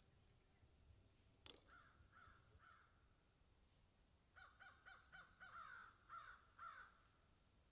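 Bird calling faintly: a few short calls about two seconds in, then a quick run of short repeated calls that gives way to several longer falling calls. A single faint click comes about a second and a half in.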